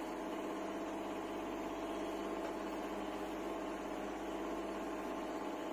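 A steady background hum made of several pitched tones, holding an even level throughout.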